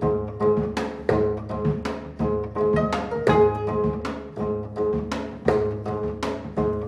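Korean traditional instrumental ensemble playing a lively gugak orchestral piece: gayageum zithers pluck a repeating rhythmic figure against sustained bowed and blown melody notes, with drum strokes underneath.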